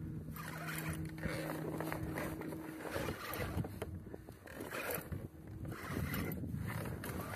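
Spinning fishing reel being cranked against a hooked fish, a rough ratcheting whir from the turning reel, with a steady low hum underneath that dies away about three seconds in.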